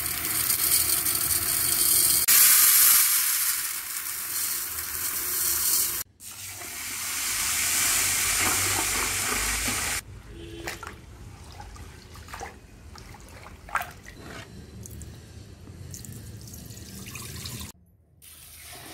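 Dry basmati rice pouring from a metal bowl into a pot with a steady hiss. After a cut, a hand swishes and rubs the rice in water in an aluminium pot to wash it, with scattered small splashes.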